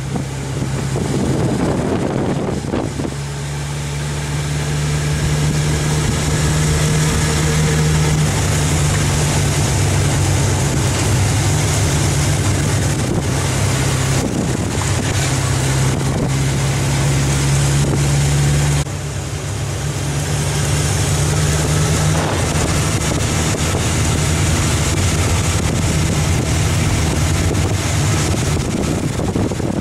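Vehicle engine running steadily under way, with wind buffeting the microphone. The engine note drops suddenly about two-thirds of the way through, as when the throttle is closed or a gear is changed, then builds again.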